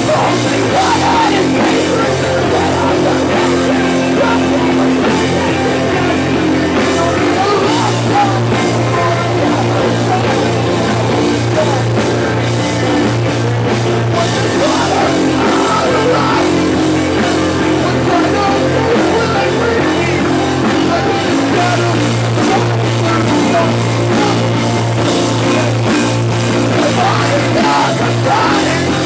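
Live rock band playing an instrumental passage on electric guitars, bass guitar and drum kit, loud and continuous.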